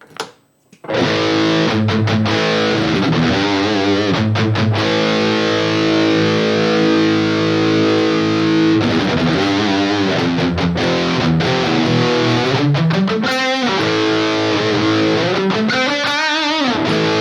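Distorted electric guitar played through a Fractal Audio Axe-Fx III amp modeller. It starts about a second in with held, ringing chords, and has bent, wavering notes near the end.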